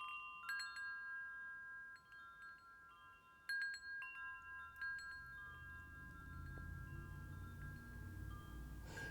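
Wind chimes ringing softly: a few light strikes with long ringing tones, clustered at the start and again about three and a half seconds in. A faint low rumble builds underneath from about halfway.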